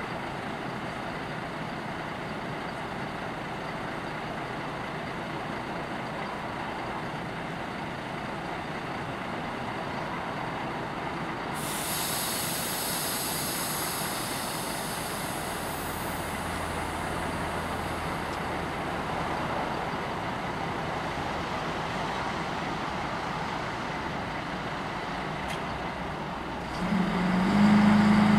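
Diesel railcar standing with its engine idling. About twelve seconds in, a hiss of compressed air starts and fades over several seconds. Near the end the engine is opened up, much louder, into a steady low drone.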